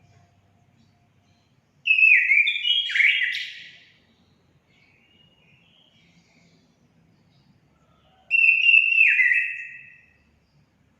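Orange-headed thrush singing: two phrases of clear, downward-gliding whistled notes, each about two seconds long, the second coming some six seconds after the first.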